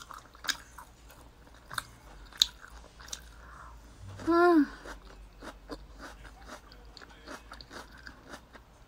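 A person chewing grilled meat close to the microphone, with sharp wet mouth clicks and smacks scattered throughout. A brief vocal sound with a rising-then-falling pitch comes a little after four seconds in.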